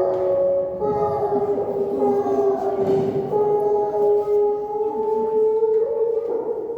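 Background music with slow, long-held notes that step from one pitch to the next every second or two.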